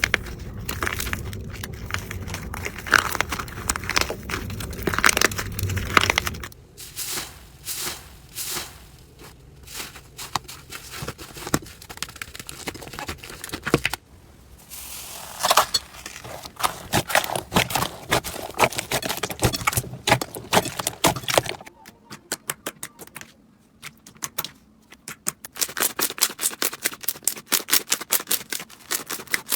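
Slime being squeezed, pressed and stretched by hand, giving sticky crackles and quick runs of popping clicks; the texture changes from one slime to the next a few times, ending in a fast, even run of clicks.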